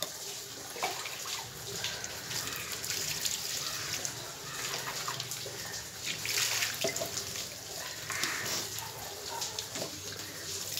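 Water scooped from a bucket with a small plastic mug and poured over a cat being bathed, splashing and trickling onto the ground. The pouring is loudest about six seconds in.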